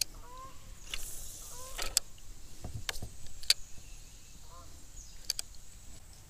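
Scattered sharp clicks and light knocks from a spinning reel and cork-handled rod being handled in a plastic kayak, about eight in all, with a few faint short chirps over a quiet background.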